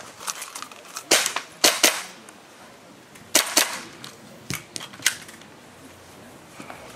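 Airsoft pistol shots: a string of sharp cracks in quick pairs and singles, eight or so over about five seconds.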